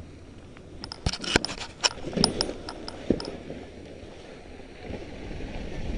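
Skis running over hard-packed snow with a camera mounted on the skier: a quick series of sharp clicks and knocks for a couple of seconds, then wind on the microphone rising as speed builds near the end.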